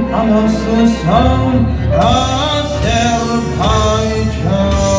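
Male vocalist singing an Azerbaijani song through a microphone and PA over instrumental accompaniment, his phrases each sliding up into a held note about once a second.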